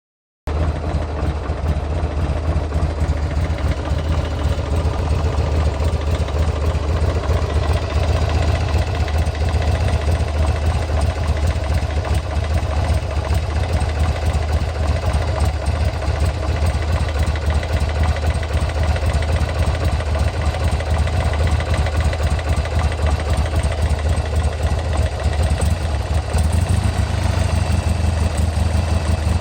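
Buell M2 Cyclone's air-cooled V-twin engine idling steadily with a fine ticking clatter over its beat. The owner, who has just replaced the lifters, cannot tell whether this noise is normal or a fault.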